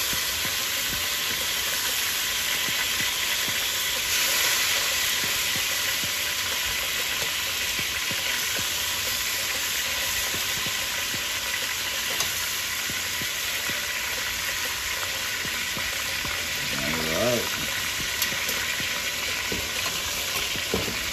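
Oxtail pieces searing in hot coconut oil in a pot: a steady sizzle, a little louder about four seconds in.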